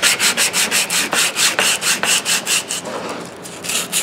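Sandpaper rubbed by hand back and forth over the heavily pitted steel jaw of large Channellock tongue-and-groove pliers, in quick scratchy strokes about five a second. The strokes ease briefly about three seconds in.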